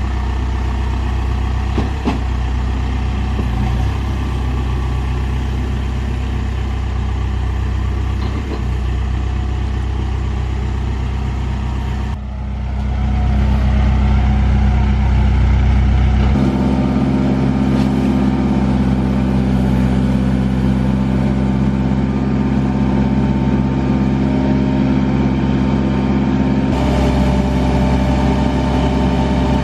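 Case 580 Super N backhoe loader's diesel engine running steadily. About twelve seconds in it dips, then grows louder and rises to a higher steady pitch a few seconds later as the engine speeds up.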